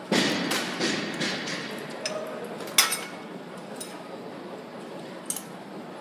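Metal clanks and clinks of gym equipment: a burst of clattering knocks at the start, a single sharp clank nearly three seconds in and a lighter one near the end.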